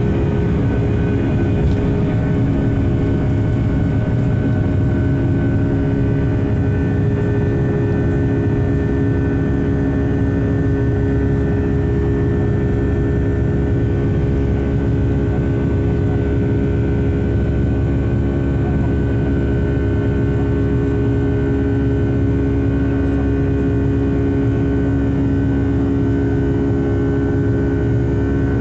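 Cabin sound of a Boeing 757-300 airliner: jet engines running steadily, with a low rumble under several even whining tones that hold their pitch.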